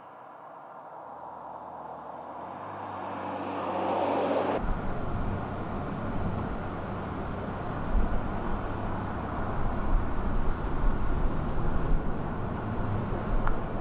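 Ford Ranger Raptor pickup driving on the road, its engine note rising in pitch and loudness as it accelerates. After about four and a half seconds it changes abruptly to a louder, rough low rumble of engine and road noise with uneven surges.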